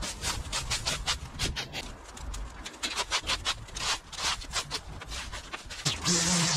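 A garden rake scraping dry grass and leaf litter across brick pavers and dirt in quick repeated strokes. About six seconds in, a Stihl handheld leaf blower starts and runs steadily.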